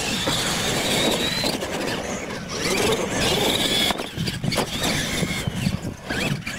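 Electric R/C monster trucks racing on dirt: a high motor and gear whine that rises several times as they accelerate, over a steady scrabbling noise from the tyres and chassis.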